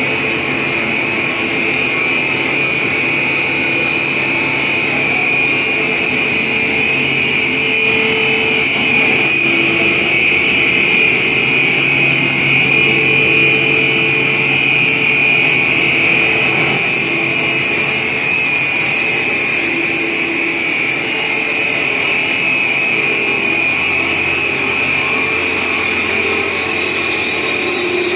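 A 2400 mm stretch film production line running: a loud, steady machinery drone with a constant high whine over a low hum.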